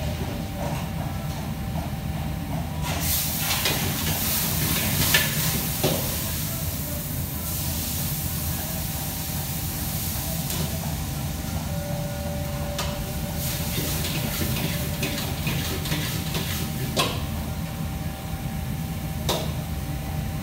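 Busy commercial kitchen: a steady machine hum underneath, with two long stretches of hissing and a few scattered clinks and knocks of utensils and steel pans.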